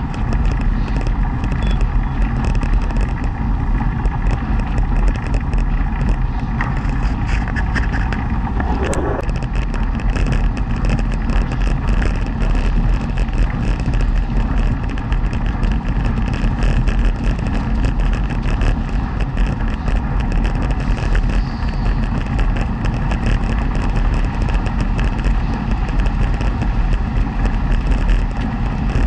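Velomobile rolling along an asphalt cycle path at about 30 km/h: a steady, loud rumble of tyres and drivetrain heard from inside the shell. There is one sharp click about nine seconds in.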